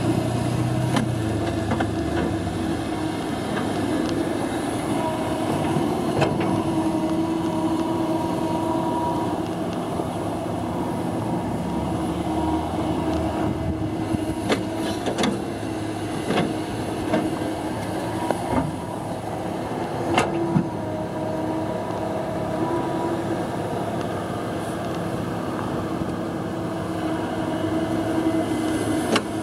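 Kobelco SK235SR excavator running as it works its boom and bucket, a steady engine note with a whine over it, broken by a few sharp knocks and clanks in the middle of the stretch.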